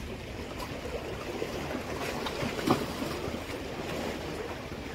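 Sea water lapping and sloshing against breakwater rocks, with wind noise on the microphone. A single brief, sharper sound stands out a little past halfway.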